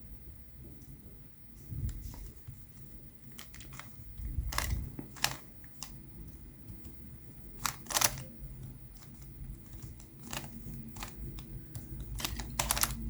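Plastic Rubik's Cube layers being turned by hand: irregular clicks and clacks, some coming in quick clusters of turns.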